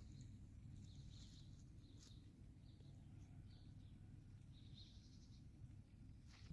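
Near silence: faint, scattered chirps of small birds, several short calls over a few seconds, above a low steady background rumble.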